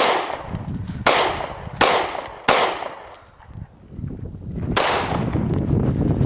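Glock 26 9mm pistol firing five shots: a quick string of four, then one more after a pause of about two seconds, each with a short echoing tail. A steady low rumble follows the last shot.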